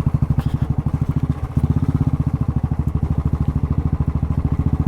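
A vehicle engine running with a steady, fast, low pulsing beat. The beat dips briefly about one and a half seconds in.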